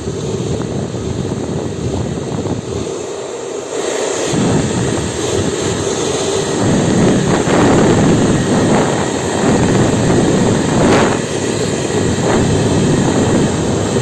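Politun handheld hair dryer blowing steadily, a loud rush of air; about four seconds in it gets louder and fuller as it is switched to a stronger setting. It is being run through its settings to test whether it gives cold air.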